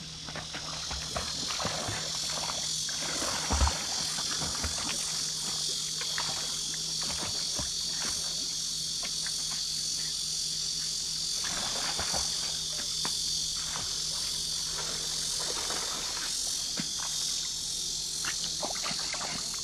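A steady high-pitched chorus of insects, with irregular splashing and lapping of water from a Boston terrier paddling through a pool. One sharp knock about three and a half seconds in.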